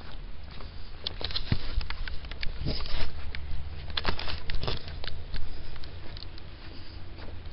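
Irregular crackling steps, like footsteps on dry leaves and twigs, over a steady low rumble.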